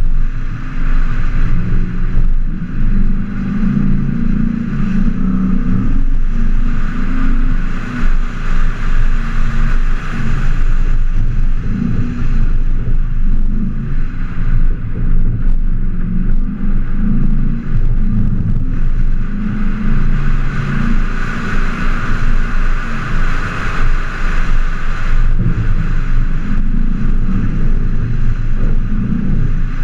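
4x4's engine running under way on a sandy track, its pitch shifting up and down with the throttle, over a steady rush of wind and tyre noise that swells twice.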